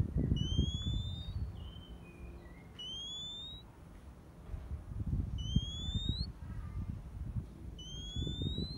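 Oriental magpie-robin calls: a rising whistle about every two and a half seconds, four times, each followed by a few short falling notes, over a low rumbling noise.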